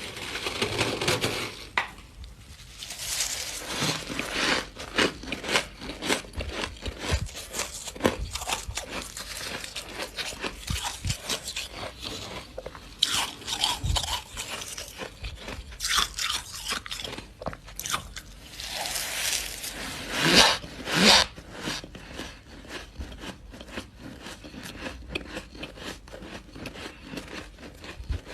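A person biting and chewing mouthfuls of freezer frost close to the microphone: a dense, squeaky crunching, with a handful of louder bites along the way.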